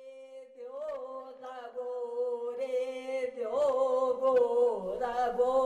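Background music: a chanted mantra sung over a steady held drone, fading in, with the voice entering about a second in.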